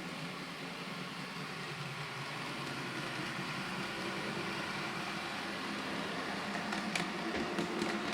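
Bachmann Derby Lightweight model train's motor and wheels running along the layout track, a steady mechanical hum that grows slightly louder, with a few sharp clicks near the end. It runs smoothly with no hesitation now that it has been repaired.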